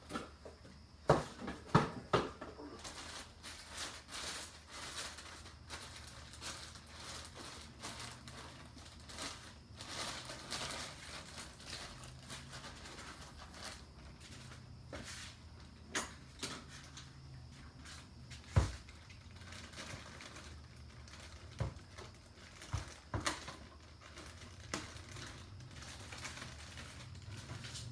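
Handling noises of intake parts and packaging: scattered clicks, knocks and crinkling as a cold air intake filter is taken out of its box and handled, with a few sharper knocks near the start and one about 18 seconds in, over a faint steady low hum.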